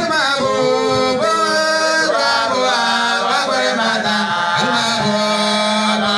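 A man's voice chanting in long, drawn-out melodic notes through a hand-held microphone, with one note held steadily near the end.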